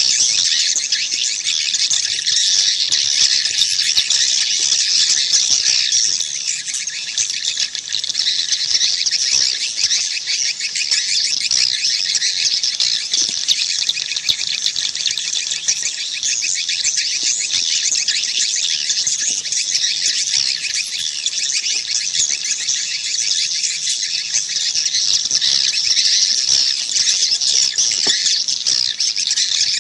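A dense, continuous chorus of swiftlets twittering, rapid high chirps overlapping without a break. It is the swiftlet call recording played at bird houses to lure swiftlets in to roost and nest.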